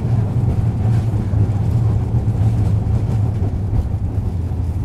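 Nagasaki Electric Tramway streetcar running along its rails, heard from inside the car: a steady low hum of the motors with the rumble of the wheels.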